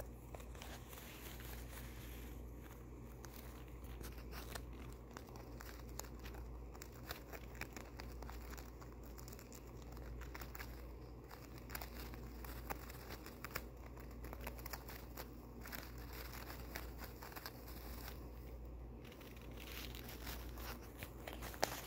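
A hamster chewing and tearing at a paper towel: faint, continuous crinkling with small rips and many quick, irregular ticks, over a steady low hum.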